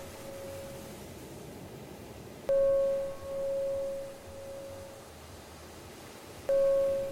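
A bell-like chime tone struck twice, four seconds apart, each stroke ringing out with a wavering fade, marking the four-second phases of box breathing. A faint steady sea hiss lies underneath.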